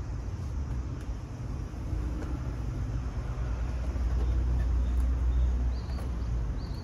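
Low outdoor rumble that swells about four seconds in and eases off near six seconds, with a few faint clicks.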